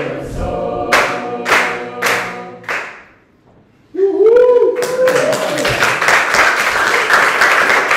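A group singing together over a sharp beat a little under twice a second, dying away about three seconds in. After a brief pause a single voice calls out with a rising and falling pitch, and then the group breaks into applause.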